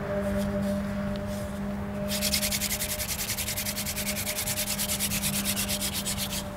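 A wooden hand drill spun between the palms into a driftwood hearth board, rasping wood on wood in a fast, even rhythm of about five strokes a second from about two seconds in. This is light, fast warm-up drilling to heat the friction-fire kit before bearing down for a coal. A steady low hum sits underneath.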